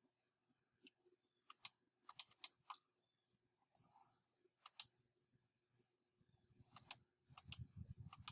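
Sharp clicks of a computer mouse and keyboard, scattered and often in quick pairs, as the computer is being worked. A faint steady high whine runs underneath.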